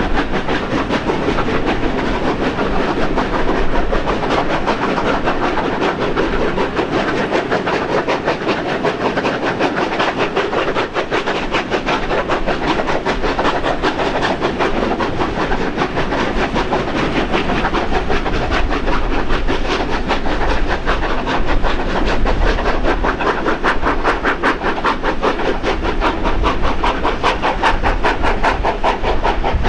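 Double-headed steam locomotives 3016 and 3642 working hard up a steep grade: a rapid, continuous chuffing of exhaust beats over the clatter of the carriages' wheels, heard from an open carriage window. The beats grow more distinct in the last few seconds.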